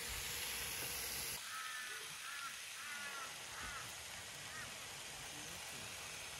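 Chicken and spring-onion skewers sizzling in a frying pan for about the first second and a half. Then, after a cut, birds call in a run of short, arched chirps that thin out toward the end.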